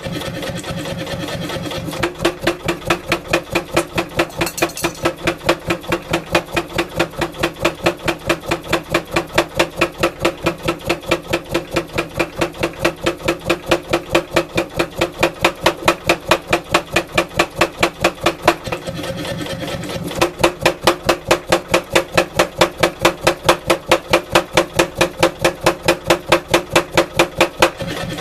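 Mechanical power hammer with a 16 kg head pounding a hot wootz steel ingot in steady runs of about three blows a second, drawing it out into a bar. The machine's motor hums on between the runs, and the blows pause about two-thirds of the way through before starting again.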